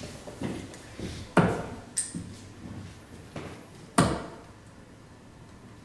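Steel-tip darts striking a Winmau Blade 6 sisal bristle dartboard: three sharp thuds, two close together and a third about two seconds later.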